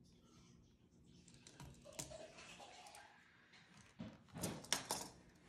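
Faint clicks and taps of a craft knife and fingertips working vinyl wrap onto a rifle's pistol grip, with a quick cluster of sharper taps about four to five seconds in.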